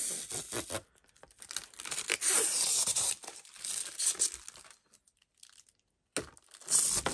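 Protective plastic film being peeled off a clear plastic pencil board, making a crackling, tearing sound. It comes in a couple of long pulls, with a short pause near the end before a last bit of crinkling.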